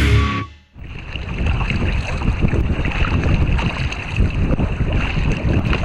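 The intro music cuts off in the first half-second, then wind buffets the microphone in uneven gusts over water lapping around a kayak on open water.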